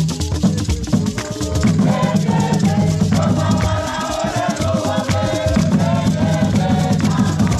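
Ghanaian traditional drum ensemble playing barrel drums in a quick, dense rhythm. Voices singing together join in about two seconds in.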